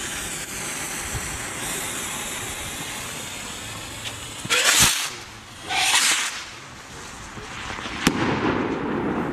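Broekhoff Signalos Trueno y Luz signal rockets: lit fuses hiss steadily, then two rockets whoosh off the launch rack about a second apart. Near the end one bursts with a single sharp bang.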